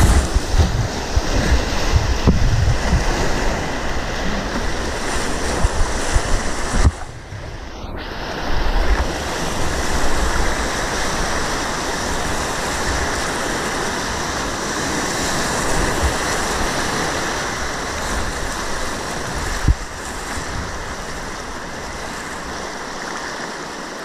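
Whitewater rapid rushing loudly around a kayak close to the microphone, with water splashing onto it and heavy low buffeting in the first several seconds. About seven seconds in the sound briefly drops and goes dull, and there is a single sharp knock near the end.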